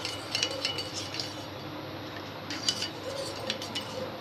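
A spoon stirring sweetener into turmeric tea, clinking against the sides of the vessel in quick runs: one during the first second and another about two and a half seconds in.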